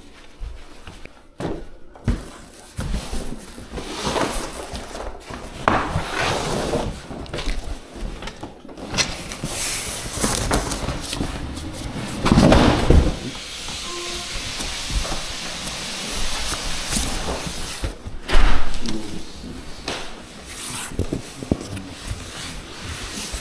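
Large cardboard flat-pack boxes being shifted and handled: cardboard rubbing and scraping with irregular knocks, a heavy thump about halfway through and another, the loudest, a few seconds later.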